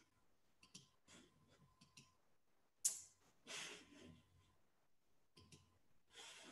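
Near silence, with a few faint small clicks and a soft breath about three seconds in.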